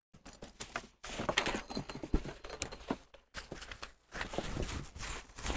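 A shoulder strap being clipped onto a soft carry case and handled: irregular small clicks and clinks from the strap hooks, with rustling of the strap and case fabric.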